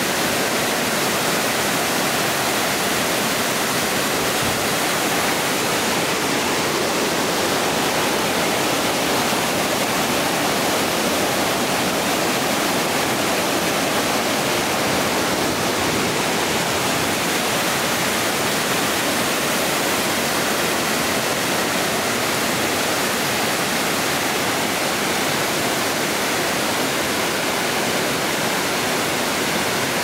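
Waterfall pouring into a rock plunge pool, a steady, unbroken rush of falling and churning water.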